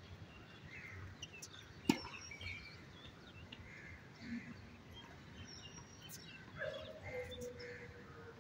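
A tennis ball struck sharply once about two seconds in, with fainter knocks of ball play on the courts. Birds chirp throughout, and a faint steady tone comes in near the end.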